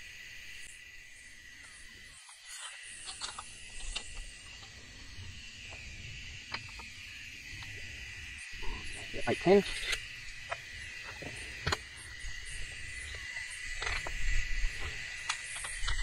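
A steady chorus of insects: a constant high-pitched drone. Scattered light clicks run through it, and a brief voice-like sound comes about halfway through.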